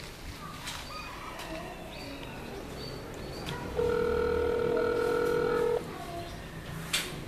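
Telephone ringback tone playing through a mobile phone's speaker while a call rings out: one steady beep lasting about two seconds, starting about four seconds in after a pause. A sharp click follows near the end.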